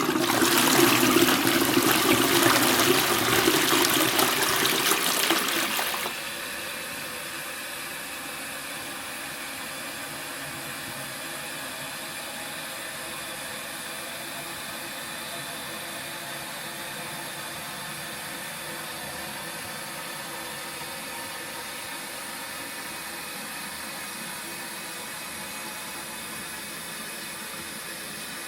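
Toilet flushing: a loud rush of water for about six seconds that cuts off abruptly, followed by a steady, much quieter hiss of the tank refilling.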